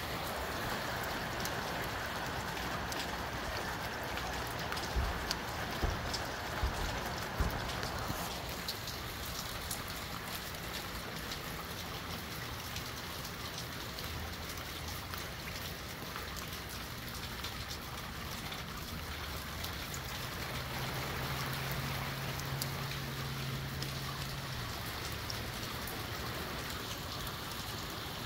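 Steady rain of a windy shower falling, with fine drop ticks throughout; the rain noise eases about eight seconds in. A few low thumps come between about five and seven and a half seconds in, and a low hum sounds for a few seconds past the middle.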